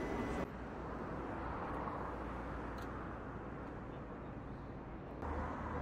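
Outdoor ambience: an even, steady background noise with no distinct event, changing abruptly about half a second in and again near the end.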